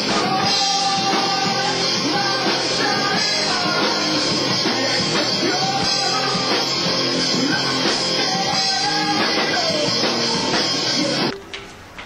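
A rock band playing live, with singing over drums and loud amplified instruments, heard as an old, lo-fi recording. The music cuts off suddenly about a second before the end.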